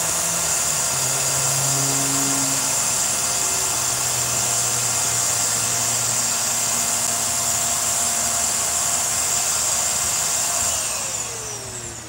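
Hoover Air Steerable upright vacuum running steadily with a high motor whine, its airflow restored now that a large clog has come out. Near the end it is switched off and the whine falls as the motor winds down.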